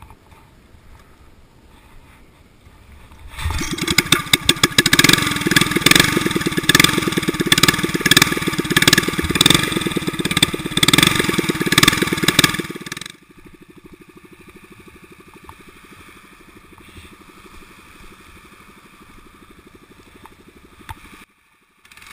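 Four-stroke single-cylinder engine of an Irbis tiller air-propulsion unit on an inflatable airboat. It starts a little over three seconds in and runs loud with a rapid, even beat for about ten seconds, then drops suddenly to a much quieter steady running.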